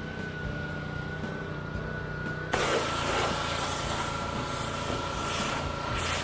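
Gas-engine pressure washer running steadily with a thin whine. About two and a half seconds in, the wand opens and a loud hiss of high-pressure water spraying onto the boat's deck and canvas cover joins it, the whine dipping slightly in pitch.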